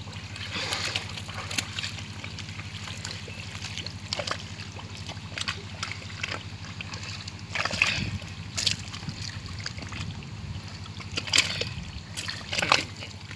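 Wet mud and shallow water splashing and squelching as hands dig and grab catfish in a muddy pond, with sharp splashes scattered through, a cluster about eight seconds in and more near the end. A steady low hum runs underneath.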